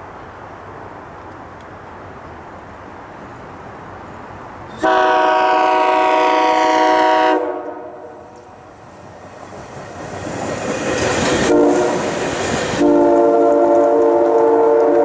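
SEPTA Silverliner V electric multiple unit sounding its very loud Nathan K3LA three-chime air horn: a long chord starting about five seconds in and lasting about two and a half seconds, then the rushing noise of the train passing close by. The horn sounds again, a little lower in pitch, from about thirteen seconds on.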